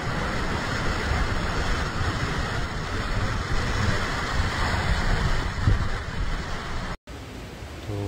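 Waterfall cascading over rocks at close range: a loud, steady rush of water that cuts off abruptly about seven seconds in.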